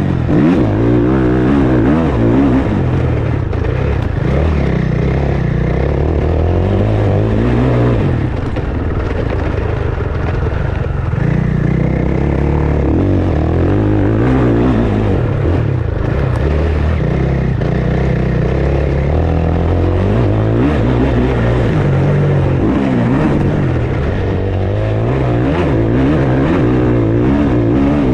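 KTM 690 Enduro's single-cylinder engine on the move, its revs rising and falling several times as it accelerates and backs off.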